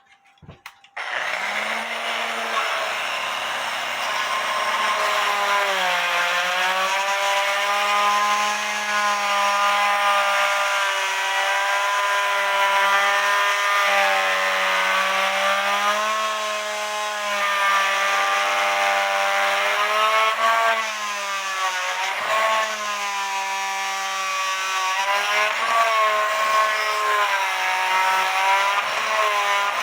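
Oscillating multi-tool running, its vibrating blade cutting through the glue and wood that hold a cuckoo clock's bellows in the case. It starts about a second in, and its pitch keeps dipping and recovering as the blade loads up in the cut.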